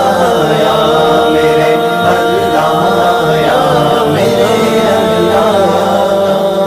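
Urdu devotional song: a singing voice holding long, wavering notes.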